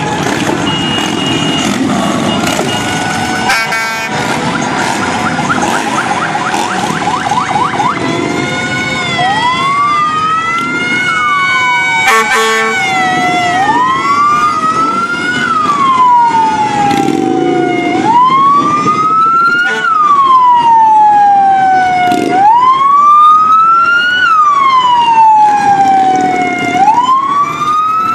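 An emergency vehicle siren wailing in slow rises and falls, each sweep taking about four seconds, starting about a third of the way in. Under it, and alone before it, run the engines of passing motorcycles and cars, with a faster warbling tone partway through the first third.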